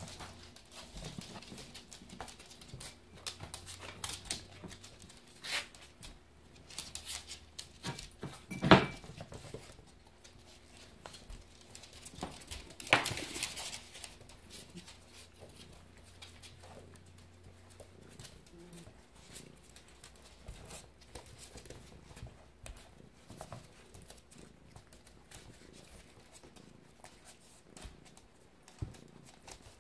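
Jack Russell puppies play-fighting over a cat: scattered scuffles and clicks of paws and claws on a wooden floor, with small puppy vocal noises. A sharp knock comes about nine seconds in, and a louder brief noise about thirteen seconds in.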